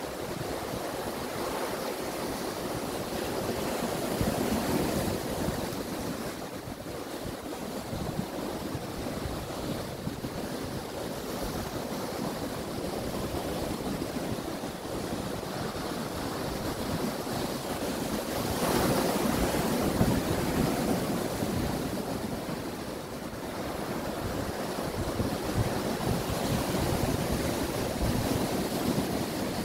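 Sea surf breaking over rocks: a steady rush of water that swells and falls in slow surges, loudest about two-thirds of the way through.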